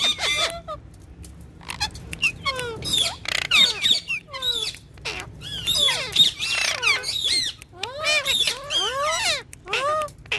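Green ringneck parrot calling in a rapid string of short chirps that rise and fall in pitch, with a brief pause about a second in.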